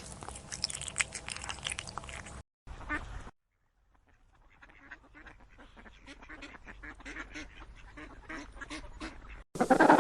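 Ducks quacking in a run of short, repeated calls, broken by a brief silence a few seconds in.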